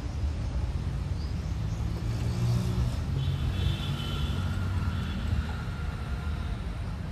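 A steady low rumble, with faint high thin tones for about two seconds starting about three seconds in.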